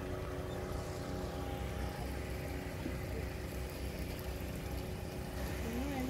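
A small boat's engine running steadily, heard from aboard as a low drone with a faint steady hum.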